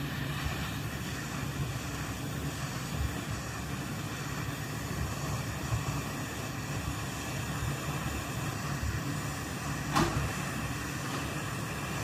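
Hot air rework station blowing steadily through its nozzle onto a circuit board, heating it to melt the solder holding a micro USB port, with a low hum under the rush of air. A single sharp click about ten seconds in.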